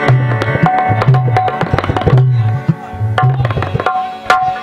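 Qawwali accompaniment: a tabla playing a rhythm of deep, pitch-bending bass strokes and sharp hand strikes, over sustained harmonium notes.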